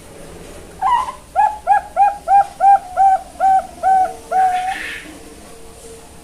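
Young Bangkok-line zebra dove (perkutut) singing its coo song. It opens with a rising note, runs through about nine short, even coos at roughly three a second, and ends on a longer held note.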